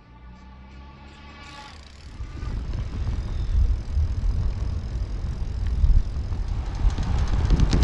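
Wind noise buffeting the microphone of a moving e-bike rig. It rises sharply about two seconds in and stays strong, with gusty blasts near the end. Before it sets in, a steady hum with overtones is heard and fades out.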